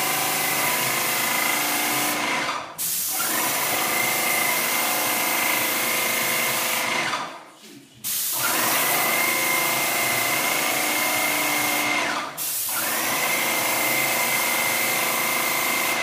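Airless paint spray gun spraying ceiling paint in long passes: a loud steady hiss with a high whistle from the tip. It cuts out briefly about two and a half seconds in and again about twelve seconds in, with a pause of about a second near eight seconds. At each restart the whistle rises quickly to a steady pitch.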